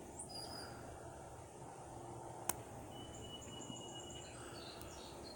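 A single sharp metallic click about halfway through, from the lock pick working the pins of a brass padlock, over a faint steady outdoor background with a few thin high chirps.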